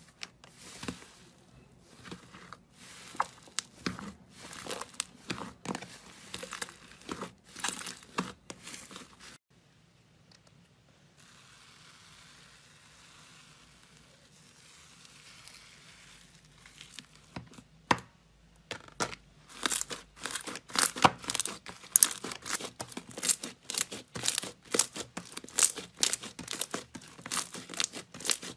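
Slime being pressed and squeezed by hand, giving dense sharp crackles and little pops. About ten seconds in it drops to a soft, quiet hiss for several seconds while a stick stirs a stringy slime. Then the crackling and popping comes back louder as a ball of slime is squeezed.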